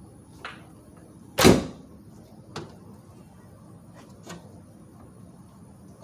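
Rear door of a 1994 Ford E-150 van shut with one loud slam about one and a half seconds in, followed by a few light clicks and knocks.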